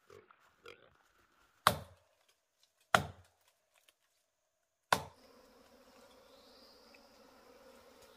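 Three sharp knocks, a second or two apart, then a steady buzzing hum of honeybees at a hive in a tree trunk that is being cut open.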